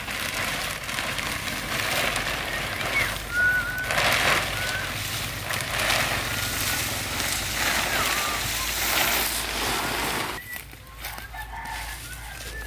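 Large plastic tarp rustling and crinkling loudly as it is dragged off a pile, stopping about two seconds before the end. Short bird chirps come through a few seconds in and again after the rustling stops.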